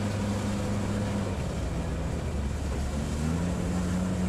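Sherp amphibious vehicle's diesel engine running steadily, heard from inside the cabin; its note drops lower about a second and a half in, then rises again about three seconds in as the revs come back up.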